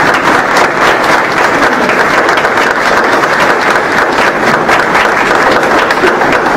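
Audience applauding, many hands clapping together in a steady, unbroken round.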